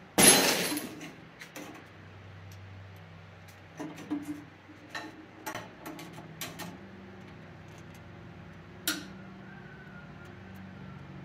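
Metal clanks, taps and clicks of a hand tool working on a metal-cutting band saw as its blade guide bar is refitted, with a loud clatter right at the start and scattered sharp ticks after. A faint steady hum runs underneath.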